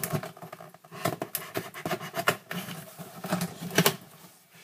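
Cardboard shipping box and its contents being handled and unpacked: irregular scratching, rustling and sharp taps, the loudest about four seconds in.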